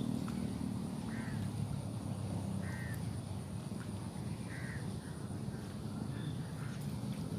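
A bird giving short calls, one about every second and a half, over a steady low rumble and a thin, steady high tone.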